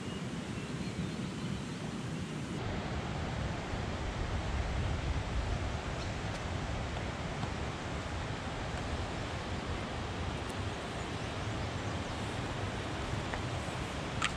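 Steady rushing noise of a river flowing over a rocky bed, mixed with wind on the microphone.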